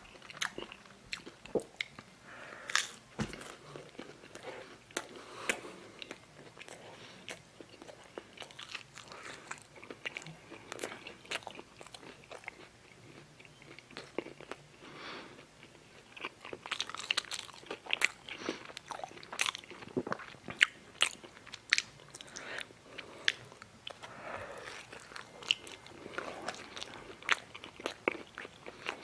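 A person chewing close to the microphone: a dense, irregular run of wet clicks, smacks and small crunches from the mouth, busier in the second half.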